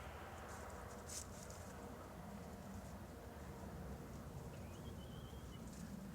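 Faint outdoor ambience with a steady low rumble, a sharp click about a second in, and a short bird twitter about five seconds in.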